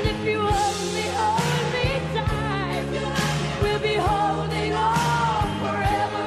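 A pop song playing: a sung vocal melody over sustained chords and a steady beat of about two drum hits a second.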